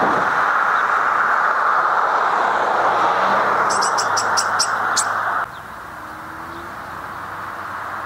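A bird gives a quick series of about six short, high, evenly spaced notes, over a loud steady rushing noise that cuts off suddenly about five and a half seconds in.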